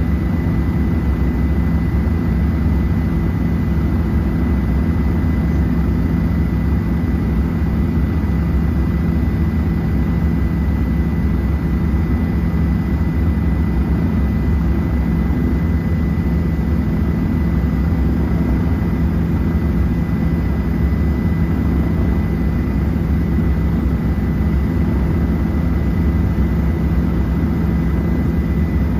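Helicopter in flight: a steady heavy drone of engine and rotor, with a thin steady whine above it.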